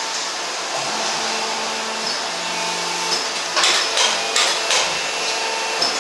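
Steady whirring hum of a running plastic injection moulding machine, with several sharp clicks and knocks about halfway through.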